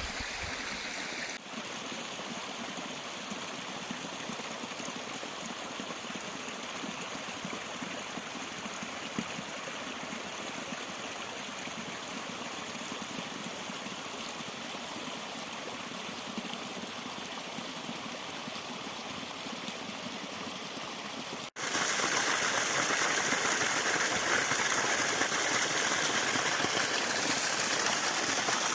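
Steady rush of water from a small waterfall and its stream. About 21 seconds in it cuts abruptly to a much louder, brighter rush.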